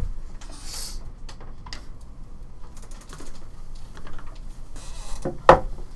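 Handling noise as boat dash panels and a cut-out dash template are picked up and moved about: scattered light clicks and taps and a short rustling slide, with one sharp knock near the end.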